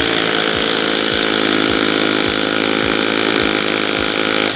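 INGCO RH10508 rotary hammer drilling into a concrete floor in hammer-drill mode, running steadily under load, then stopping abruptly near the end.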